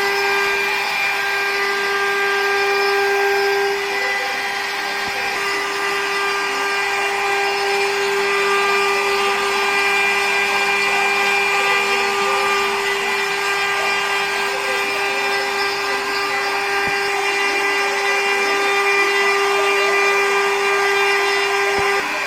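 CNC router spindle running with a steady high whine while cutting out sign letters.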